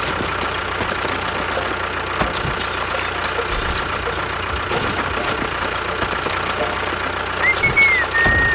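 A small engine or motor running steadily. Near the end comes a brief high, wavering whistle.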